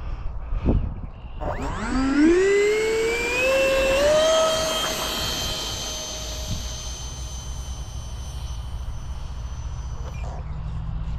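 Electric ducted fan of a 64 mm StarMax F-18 RC jet spooling up for a takeoff run. It starts about a second and a half in with a steeply rising whine that levels off into a steady high whine, then cuts off near the end. A low wind rumble on the microphone runs underneath.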